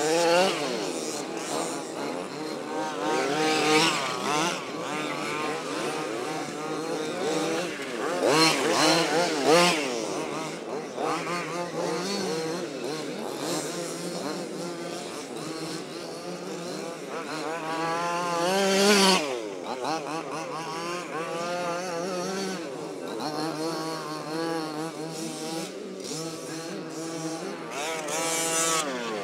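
1/5-scale gas RC off-road cars racing, their small two-stroke engines revving up and down all the time, several at once. Three times the sound swells loud as a car passes close.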